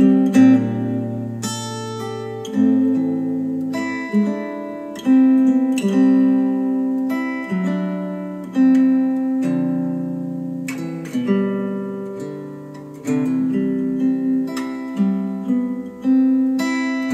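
Acoustic guitar music played back through KEF R3 bookshelf speakers driven by a Marantz PM7000N integrated amplifier. Picked notes and chords are struck every few seconds and left to ring out.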